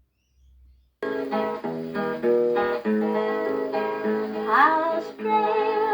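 A 78 rpm record playing on an HMV 156 wind-up gramophone: its guitar introduction starts suddenly about a second in, with a sliding note a little past the middle.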